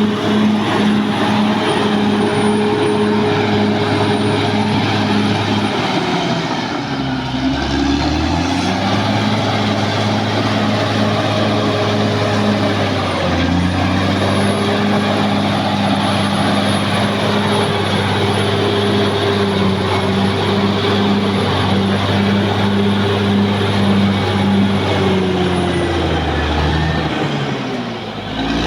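Caterpillar D6R XL bulldozer's diesel engine running steadily while working, its engine note twice sinking briefly and recovering, with a thin high whine above it.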